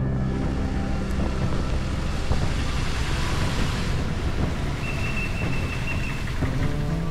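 Steady rushing noise of rain and wind, with low background music tones dying away in the first second or so. A thin, high, steady tone is held for about a second and a half about five seconds in.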